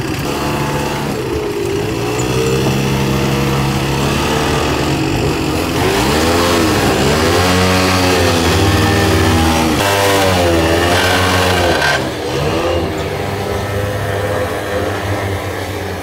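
Engine of a vehicle towing a yatai food-stall cart out of its lot. A steady engine note; from about six seconds in the engine revs, its pitch rising and falling several times, and it drops back about twelve seconds in.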